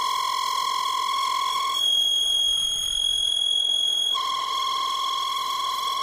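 Lathe cutting tool squealing as it chatters against a spinning metal workpiece: a steady, high-pitched whine. About two seconds in it jumps to a higher pitch, and about two seconds later it falls back to the lower one.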